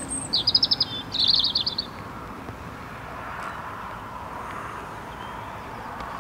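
A small songbird sings two quick phrases of rapid, repeated high notes, the second starting about a second in, over a steady low background hiss.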